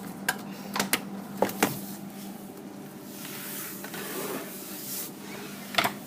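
Sharp plastic clicks and knocks from a Whirlpool refrigerator's water-filter cartridge and its housing being handled and pushed into place, about six of them, several bunched in the first two seconds and one more near the end.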